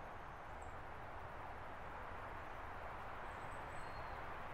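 Faint, steady outdoor background hiss with no footsteps, with a few faint high chirps in the second half.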